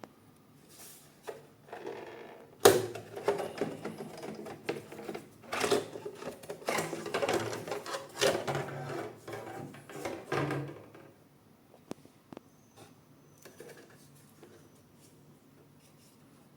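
Hands handling 3D printer parts and packaging: a sharp knock, then a busy run of clicks, knocks and rattles that stops short, leaving a few faint ticks.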